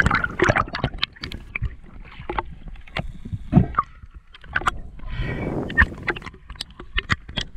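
Seawater splashing and sloshing around a spearfisher's camera at the surface, with many sharp clicks and pops throughout and a longer burst of splashing about five seconds in.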